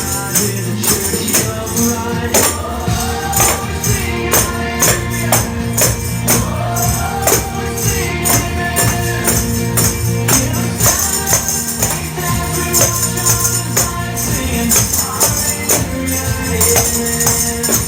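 Christian rock song with singing, with tambourines shaken and struck in a steady rhythm along with the beat.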